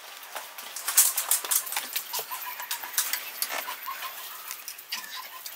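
Small birds chirping, many short, sharp chirps in quick irregular succession.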